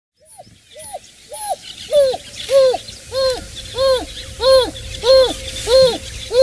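An animal calling in a steady series of about ten short hoots, each rising and then falling in pitch, spaced a little over half a second apart. The calls start faint and grow louder over the first two seconds.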